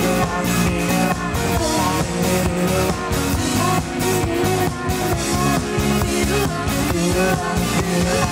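Rock music: a band with a driving drum kit beat and a singing voice carrying the melody.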